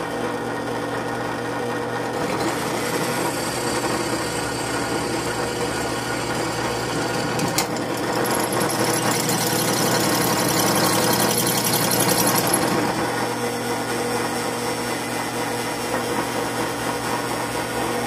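Drill press running a hole saw into 3/16-inch steel plate: a steady motor hum with the teeth grinding into the steel. About eight seconds in the cut grows louder with a high squeal for about four seconds, then settles back.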